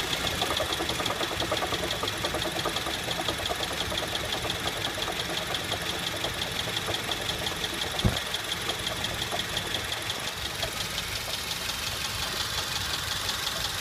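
A 2008 Honda Civic's engine running with a loud, rapid, even knocking tick, the sign of a bad AC compressor bearing. A single short thump about eight seconds in.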